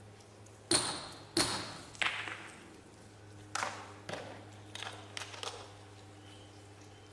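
Hammer striking steel wedges set in the granite block to split it: three sharp, ringing metal-on-metal blows about two-thirds of a second apart, then several lighter taps.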